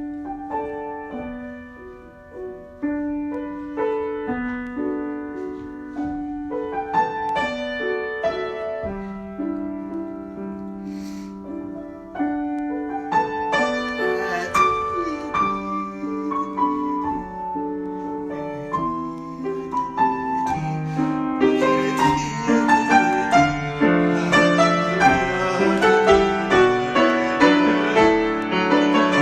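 Solo piano improvisation, with single notes and chords that are sparse and moderate at first, then grow louder and busier, with quicker notes in the upper range, from about two-thirds of the way through.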